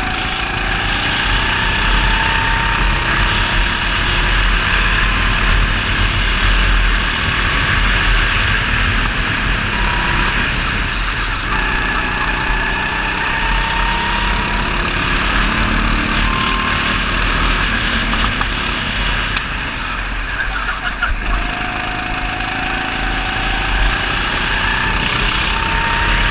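Go-kart engine running hard through a lap. Its pitch climbs as the kart accelerates on the straights and falls back when it slows for corners, about ten seconds in and again around twenty seconds in. A steady low wind rumble sits on the onboard camera microphone.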